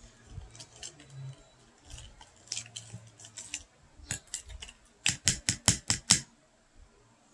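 Metal spoon stirring and scraping through halo-halo in a plastic cup, with scattered light clicks. About five seconds in comes a quick run of about seven loud, sharp clicks, roughly six a second.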